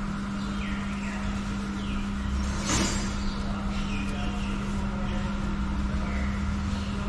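Steady low mechanical hum of workshop background, with short bird chirps now and then and a single sharp metallic knock about three seconds in as a wrench is worked on a diesel injector.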